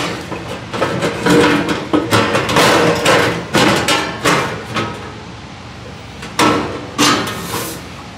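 Hammer striking sheet metal: a run of sharp blows about twice a second, a short pause, then two more blows near the end.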